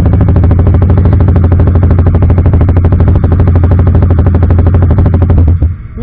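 CF Moto 300SR's single-cylinder engine running loud through an Akrapovic full-system exhaust while riding, a deep rumble with a fast, even pulsing. The sound drops away suddenly about five and a half seconds in.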